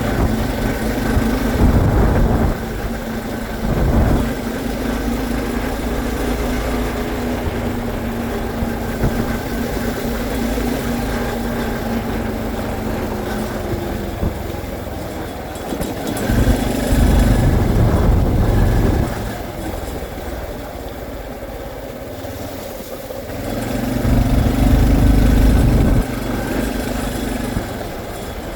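Honda CT125's small single-cylinder engine running steadily while riding, with a few louder stretches where the sound swells for a couple of seconds.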